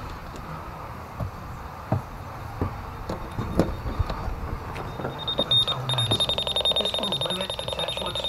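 A few sharp knocks and clinks, then about five seconds in a high-pitched electronic alarm tone starts, pulsing rapidly and continuing steadily.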